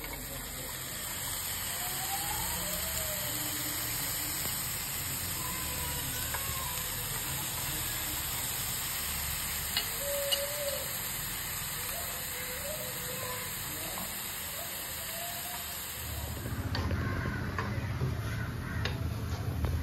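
Chopped, hand-squeezed banana flower sizzling in a hot pan as it is dried out: a steady hiss with two sharp clicks about ten seconds in. Near the end the hiss drops away and a low rumble rises.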